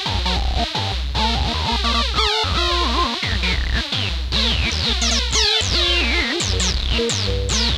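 Electronic rock music led by synthesizer: quick falling synth chirps repeat over a steady pulsing bass line.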